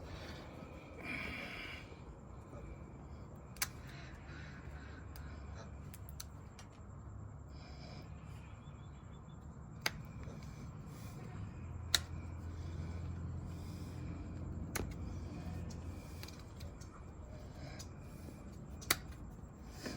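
Hand hoof-trimming shears snipping through a goat's hoof wall: about five sharp single snaps, several seconds apart, with faint rustling and handling between them.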